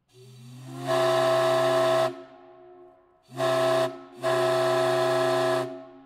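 Crosby 8-inch chime steam whistle, an 1890s town fire-alarm whistle, blown on compressed air and sounding several notes together as a chord. It gives a long blast of about two seconds with a swelling start, a short blast, then another blast of about a second and a half.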